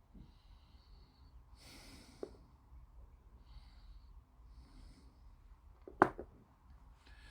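Close breathing through the nose, in several soft hissy puffs, with light handling of small plastic kit parts and one sharp click about six seconds in.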